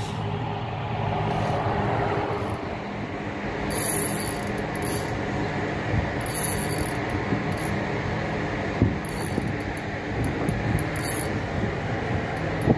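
Spinning fishing reel being wound against a fish on the line, with a steady mechanical whirring and ticking and several short high hissing bursts. A boat engine hums steadily underneath.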